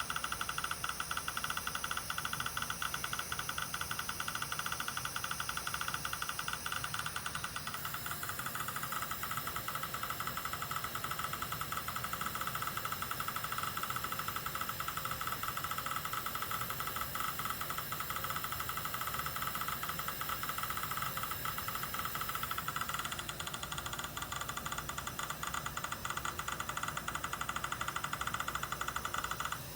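Dental equipment running continuously with a steady mechanical whir, its tone shifting about eight seconds in and again about twenty-three seconds in.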